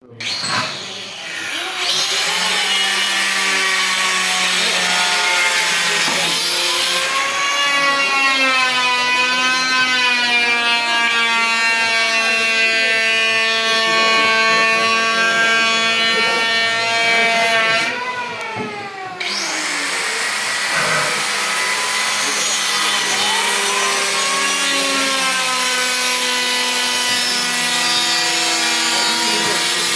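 Electric woodworking power tool running through wood, its motor whine sagging and recovering in pitch under the load of the cut. It stops briefly about 18 seconds in, then spins back up with a rising whine and keeps cutting.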